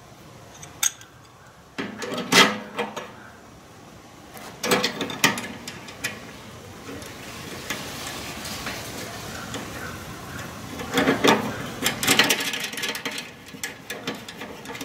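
Small metal screws and nuts clicking and rattling against a sheet-metal bracket as they are fitted and tightened by hand. The sound comes in scattered bursts, busiest about two seconds in, around five seconds in, and again near the end.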